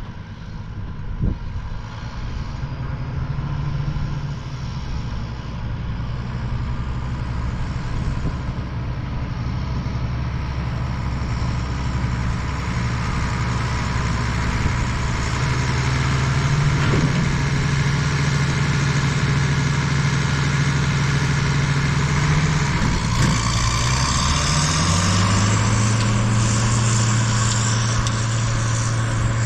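International Harvester 1586 tractor's six-cylinder diesel engine running steadily while it pulls a ground-driven rolling tiller. Near the end the engine speeds up, its pitch climbing over a couple of seconds and then holding higher.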